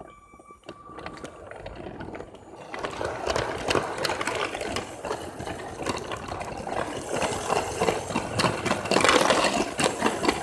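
Motorized Lego train running on plastic track: a small electric motor whirring with a rattle of many small clicks, growing louder about three seconds in.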